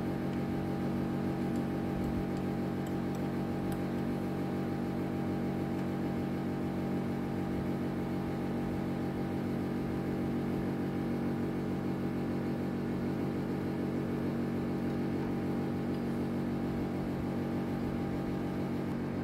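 Milling machine's motor running at a steady speed, an even hum with no cutting or knocks.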